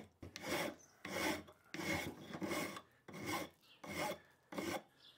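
Hand file being pushed across a small steel block, smoothing a rough-sawn wing-nut shape. About seven even strokes, roughly one every 0.7 seconds, stopping shortly before the end.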